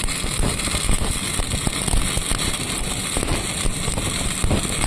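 Arc welding in progress: the welding arc crackling steadily, a dense run of fine pops.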